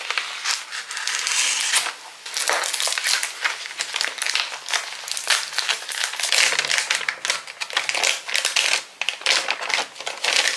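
Plastic packaging and bubble wrap crinkling and rustling in the hands as a phone case is unwrapped, a dense, continuous run of small crackles.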